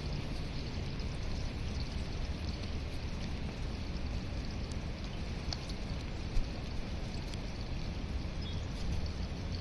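Steady low outdoor rumble with faint scattered ticks of feeding pigeons pecking seed off the ground, and one sharper click about six seconds in.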